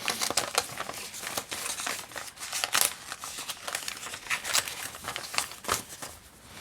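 Paper crinkling and rustling as the pages and paper ephemera of a handmade junk journal are handled and folded, in irregular sharp crackles.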